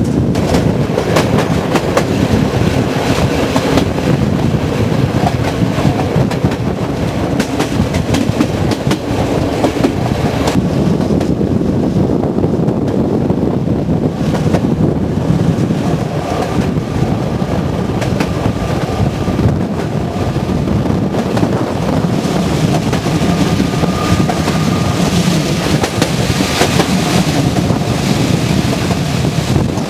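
Passenger train running on the line: steady rumble with clattering wheels over the rails and wind rushing past the open window. A faint thin high whine is heard for several seconds midway, and the hiss grows brighter near the end as the train runs into a tunnel.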